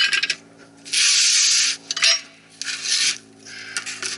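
Rasping scraping strokes, like a tool worked back and forth over a part: one long stroke about a second in, then shorter ones, over a faint steady low hum.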